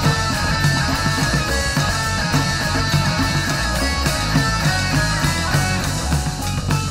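Psychedelic rock band playing: electric guitars over bass and drums with a steady beat.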